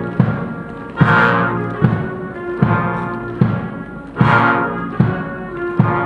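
Military brass band playing a slow funeral march: held brass chords over a heavy drum beat about every 0.8 seconds, with two loud crashes about three seconds apart.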